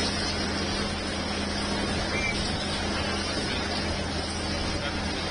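Steady engine hum with constant low tones under a wash of noise, with a brief high chirp about two seconds in.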